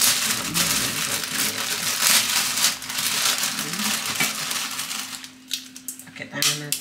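Plastic bag crinkling and rustling as brittle dried tofu skin is handled inside it. About five seconds in, this gives way to a few sharp snaps and clicks as the pieces are broken into a stainless steel bowl.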